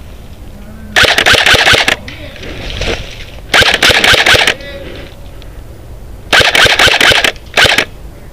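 Airsoft rifle firing on full auto: three bursts of rapid shots about a second each, then a short one near the end.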